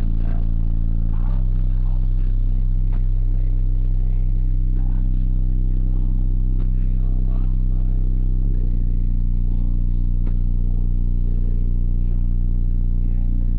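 A wall of four 15-inch Deaf Bonce 4515 subwoofers playing a loud, sustained deep bass note, heard inside the car. The note shifts pitch about a second in and again around two-thirds through, with faint clicks and rattles from the car's interior.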